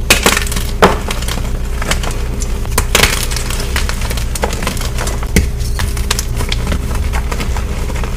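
Blocks of gym chalk being crushed and crumbled close to the microphone: irregular crisp crunches and snaps. Louder cracks come about a second in, about three seconds in and at about five and a half seconds.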